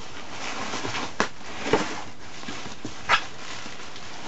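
Bubble wrap and a cardboard shipping box being handled: rustling and crinkling, with three sharp crackles.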